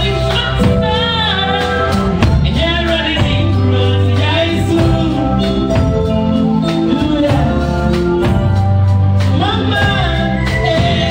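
Live band playing: drum kit, electric bass and keyboard, with a woman singing a melody over it.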